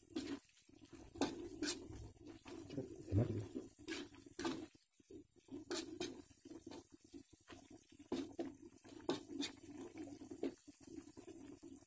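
Metal spatula stirring and scraping through soupy greens and tempe in an aluminium wok: irregular clinks and scrapes against the metal, with the broth sloshing.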